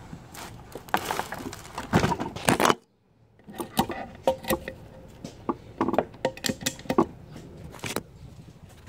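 Clatter and sharp metallic clicks of tools and valve parts being handled on a wooden bench, mixed with rubbing and knocks from the phone being handled. The sound cuts out briefly about three seconds in.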